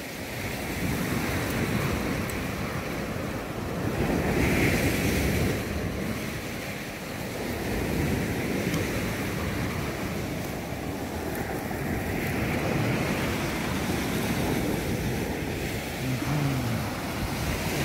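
Sea surf breaking and washing up the beach, swelling and easing, with wind buffeting the microphone.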